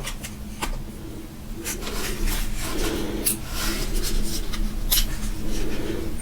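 Hands handling a small plastic camera and its packaging: scratchy rubbing and rustling, with a few sharp clicks near the start and several louder scrapes in the middle.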